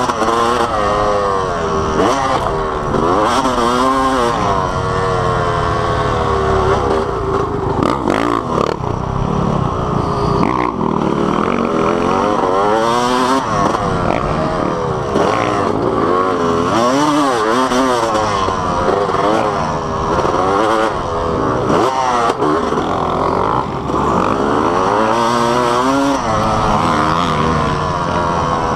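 Dirt bike engine heard from on board, revving up and falling back in pitch over and over as the rider accelerates, shifts and backs off around a motocross track.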